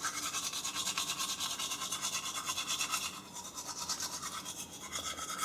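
Fast, even scrubbing or rubbing noise at about eight to ten strokes a second, a little quieter after about three seconds.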